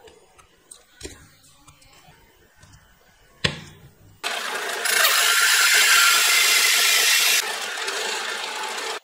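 A few light knocks of wooden boards set down on a table, the sharpest a little after three seconds in. Then a drill press drives a hole saw into a wooden board: a loud, steady cutting noise that starts about four seconds in, grows harsher for a couple of seconds in the middle and cuts off abruptly at the end.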